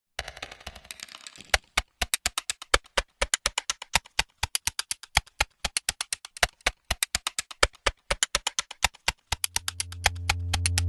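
Canon 77D DSLR shutter firing in a rapid burst, about six to seven clicks a second, after a dense rattle for the first second and a half. A low drone swells in near the end.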